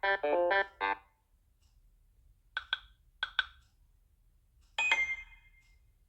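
Samsung Galaxy S21 Ultra notification tones played one after another: a quick tune of several notes, then two pairs of short high blips, then a bright chime about five seconds in that rings out briefly.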